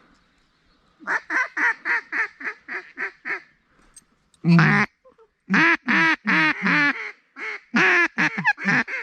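Mallard-style duck call blown in runs of quacks to work ducks into the decoys. A quick string of quacks at about five a second starts a second in. After a short pause come louder, longer quacks in two bursts, one in the middle and one near the end.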